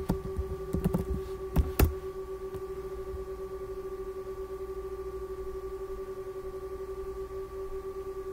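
Several computer keyboard keystrokes in the first two seconds, the last ones the sharpest, over a steady electrical hum with a fine rapid pulsing, which then carries on alone.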